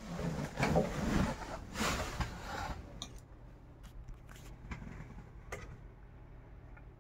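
Rustling handling noise for the first few seconds, then a few light, separate clicks and taps about a second apart, as a vinyl Funko Pop figure on its clear plastic stand is handled and set on a shelf.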